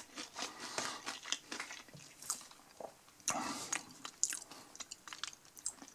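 Close-up biting and chewing of a crispy battered onion ring: an irregular run of short crunches and crackles, a few louder ones partway through.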